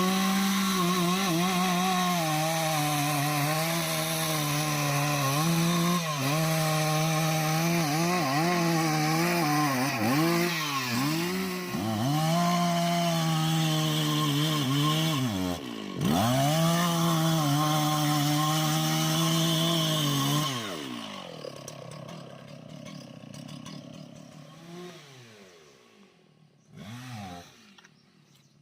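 Chainsaw running at full revs cutting into anjili wood, its pitch sagging and recovering a few times under load. About two-thirds of the way through the revs drop and it runs much quieter.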